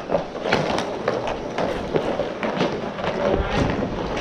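Inline hockey play: inline skate wheels rolling and scraping on plastic sport-court tiles, with sharp clacks of sticks and puck coming irregularly, several a second.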